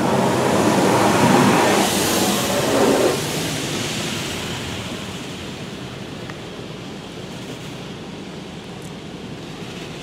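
High-pressure water jets of an in-bay automatic car wash spraying against the car, heard from inside the cabin. The spray is loud for about the first three seconds, drops off sharply, then fades to a quieter steady hiss as the jets move away.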